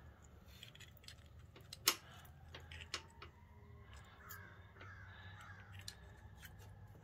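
Faint clicks and taps of a carburetor's throttle slide and cable being worked into the carburetor body by hand, with one sharper click about two seconds in.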